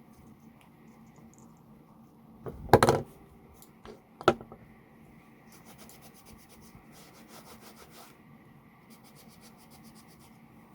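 Cloth rubbing carnauba cream into a leather knife sheath in quick, repeated strokes. A loud handling clatter comes about two and a half seconds in, followed by a single sharp knock.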